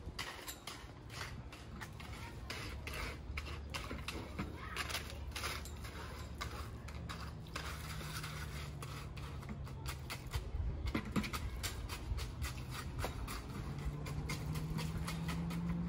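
Concrete mix scraped and tipped out of a plastic bucket into a fence-post hole: a run of irregular gritty scrapes and taps that thins out after about ten seconds. A low steady hum comes in partway through and again near the end.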